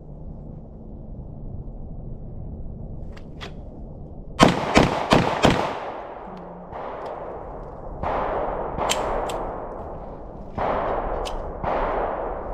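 Four quick pistol shots about a third of a second apart, followed by several duller gunshots with long echoing tails, spaced a second or more apart.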